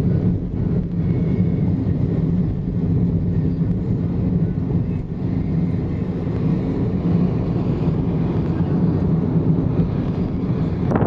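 Steady low drone of a vehicle's engine and running noise, with a constant hum.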